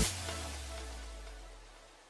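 Background electronic dance music ending: the last chord and bass note ring on and fade away.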